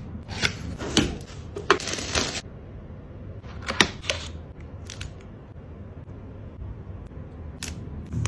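Packaging being handled and opened by hand: a quick run of sharp clicks and crinkling rustles in the first couple of seconds, a few more about four seconds in, then only occasional faint ticks.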